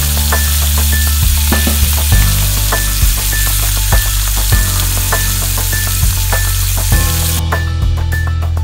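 Salmon fillets sizzling in hot oil in a frying pan, over background music with a steady beat; the sizzling stops near the end, leaving the music alone.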